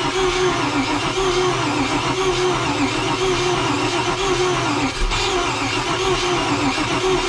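Starter motor cranking a carbureted inboard boat engine that turns over but does not fire, the starter's whine rising and falling in a steady rhythm as the engine turns against compression. The cranking stops abruptly at the very end.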